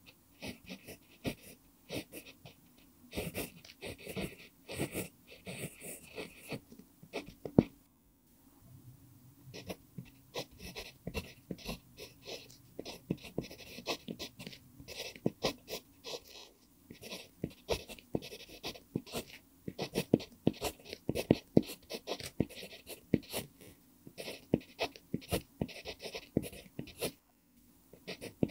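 Pentel PG5 0.5 mm mechanical pencil with an mpingo wood barrel writing on lined paper: the lead scratches in quick, irregular runs of short strokes. There is one sharper tap of the tip on the page about seven and a half seconds in, followed by a brief pause.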